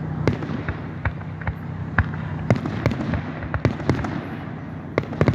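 Aerial fireworks going off overhead: an irregular series of sharp bangs and pops, coming thickest around the middle and again near the end.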